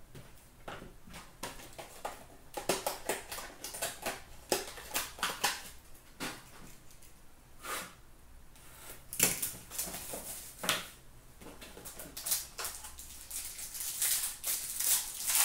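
A 2017-18 Upper Deck Ultimate Hockey cardboard box being handled and opened. There is a run of taps, clicks and cardboard rustles, which grows into denser crinkling and rustling of the packaging over the second half.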